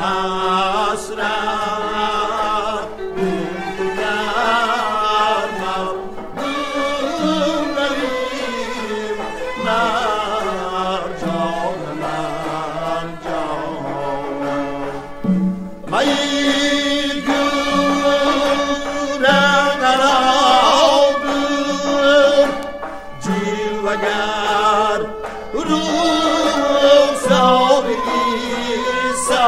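Uzbek Shashmaqom classical music: ornamented, melismatic singing with ensemble accompaniment. It pauses briefly about halfway and comes back fuller and brighter.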